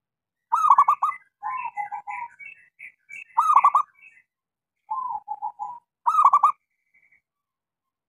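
Zebra dove (perkutut) cooing: three loud, quick runs of staccato coos about every two and a half seconds, with softer rolling coos between them.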